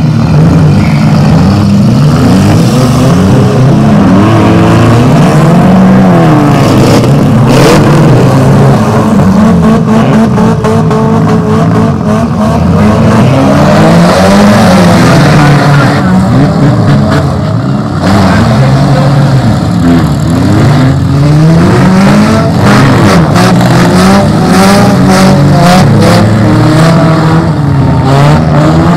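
Several four-cylinder compact cars' engines revving hard at once, their pitches rising and falling over one another as they spin and ram in the derby arena, with sharp bangs of cars colliding, more of them in the second half.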